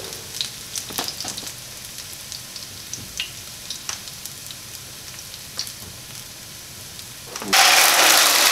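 Minced garlic frying gently in olive oil in a nonstick skillet, with light clicks of a utensil stirring against the pan. About seven and a half seconds in, canned diced tomatoes are tipped into the hot oil and set off a loud, steady sizzle.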